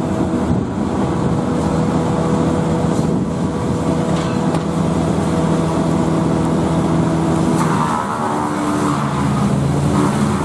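An engine running steadily at a constant pitch; about eight seconds in the note drops and settles lower.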